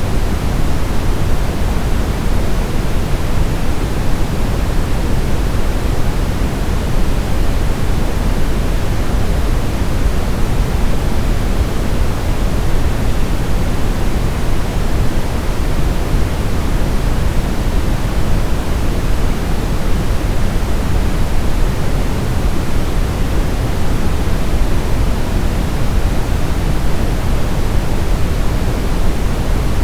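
Steady synthetic pink-type noise, an even hiss weighted toward the bass with no changes, played as a baby sleep aid.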